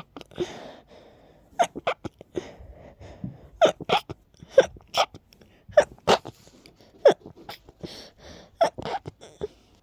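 A person's stifled, breathy sneezes: about a dozen short, sharp bursts, some coming in quick pairs, with breathy intakes between them. The sneezing is brought on by allergies.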